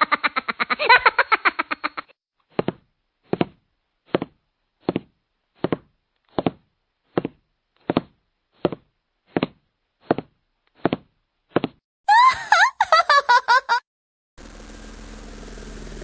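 Cartoon sound effects: about two seconds of rapid, chopped pitched pulses, then a long string of short pitched blips, about one every three-quarters of a second. Then comes a loud two-second burst of squealing tones that glide up and down, a brief gap, and a noisy whoosh that grows steadily louder near the end.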